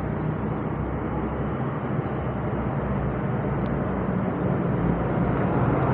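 Tour bus driving past on the road, its engine and tyres giving a steady drone that grows a little louder near the end.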